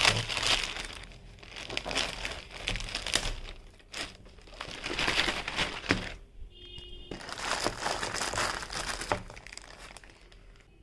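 Clear plastic polybag crinkling and rustling as a cap is handled and taken out of it, in several bouts with short pauses, getting quieter near the end.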